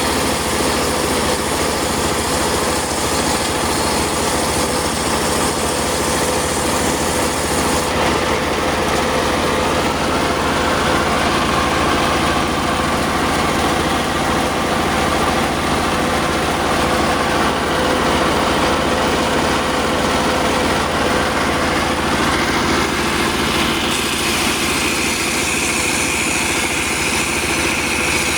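Circular sawmill (serkel) running with a steady mechanical drone. A whine comes in about ten seconds in, and a higher whine over the last few seconds, as the blade cuts sengon wood.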